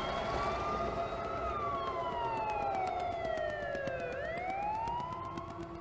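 Police car siren in a slow wail: its pitch rises for the first second or so, falls steadily for nearly three seconds, then starts rising again near the end, over a low rumble.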